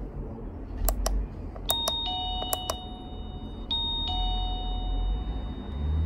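Several sharp clicks as the wireless doorbell's button is pressed, each press answered by the plug-in chime receiver. The receiver plays a two-note falling electronic ding-dong twice, about two seconds apart, and each chime rings on for a second or more. This is the button being pressed three times to pair the chime with the doorbell.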